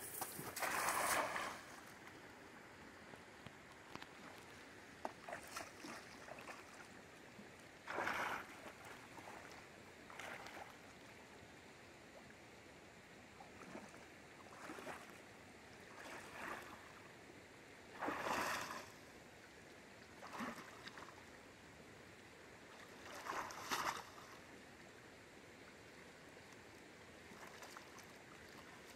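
Faint steady flow of a river current, with a splash about a second in as a thrown cast net lands on the water, then irregular splashes and sloshing as the net is hauled back in by hand through the water.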